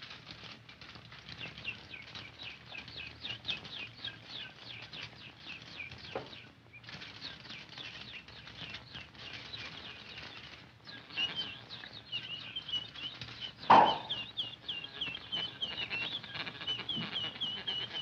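Rapid, high squeaky chirping on the soundtrack of an early sound cartoon, about five chirps a second. It breaks off briefly twice, and a single sharp pop about fourteen seconds in is the loudest sound.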